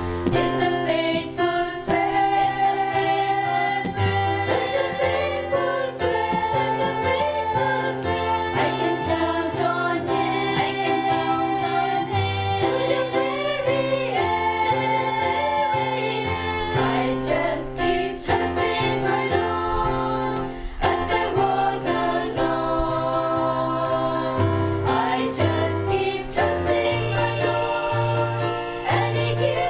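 A group of voices singing a Christian devotional song, with instrumental backing: a stepping bass line and a steady beat.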